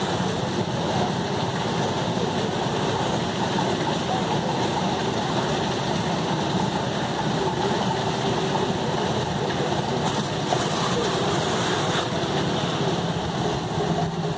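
Steady low rumble and hiss with no distinct events.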